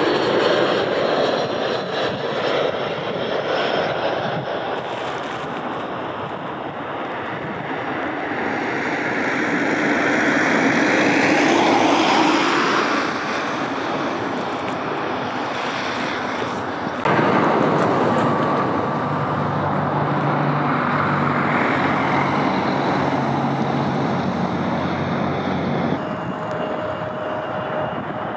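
Airliner engines passing close by: a loud, steady engine noise whose tone sweeps slowly up and down as the aircraft goes by. The sound changes suddenly about two thirds of the way through and again near the end, as a different aircraft is heard.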